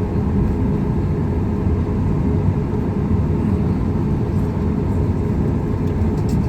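Steady low rumble inside the cabin of a Boeing 737 MAX 8 on the ground, with a faint steady hum and a few faint ticks.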